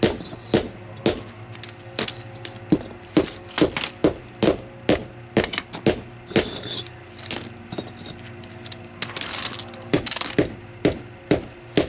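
A mallet tapping a concrete paver down to level it on its pea-gravel bed: repeated sharp knocks, about two a second. A short rushing noise comes about nine seconds in.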